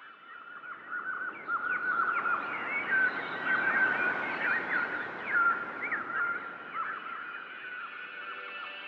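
A chorus of many small birds chirping and twittering rapidly, thickest and loudest in the middle, over a soft hiss and a few held tones from the added soundtrack.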